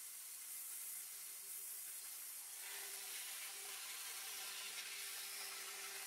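Bandsaw blade cutting lengthwise through a thick cedar board to clear the waste from a bridle joint, a faint steady hiss that grows fuller about two and a half seconds in.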